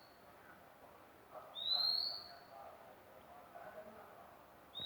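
Oriental magpie-robin giving a single drawn-out whistle that slides up and levels off, repeated about every three seconds: once about a second and a half in, and again starting at the very end.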